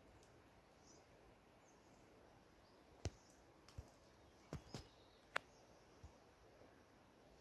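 Near-silent outdoor background hiss with a few faint high chirps in the first two seconds. Around the middle come about six short, sharp clicks and taps, as from a handheld camera being handled while it is moved.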